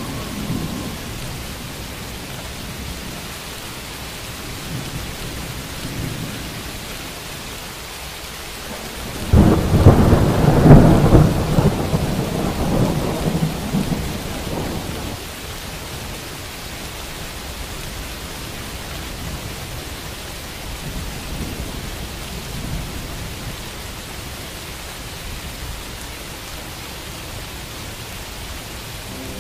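Steady rain falling, with a sudden loud crack of thunder about nine seconds in that rumbles on for several seconds before dying back into the rain.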